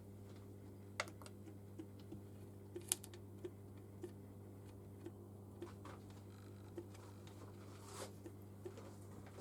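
Faint, scattered light clicks and taps of small metal gearbox parts being handled during reassembly, the sharpest about three seconds in, over a steady low hum.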